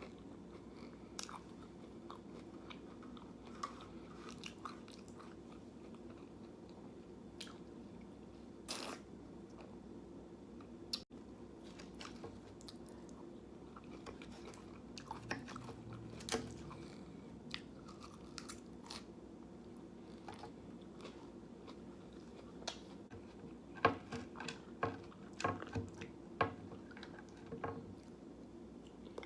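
A person chewing and biting food close to the microphone: wet mouth clicks and small crunches come at irregular intervals, thickest near the end.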